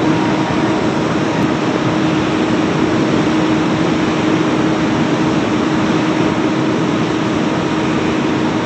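Steady industrial machinery noise, loud and unbroken, with a constant mid-pitched hum running through it.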